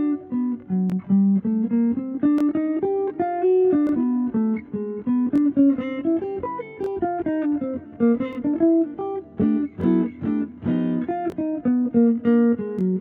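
Background music: a plucked guitar playing a quick melody of short notes.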